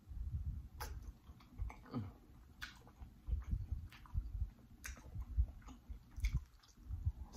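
Close-miked chewing and biting of king crab leg meat: repeated wet mouth sounds with a few sharp clicks every second or two.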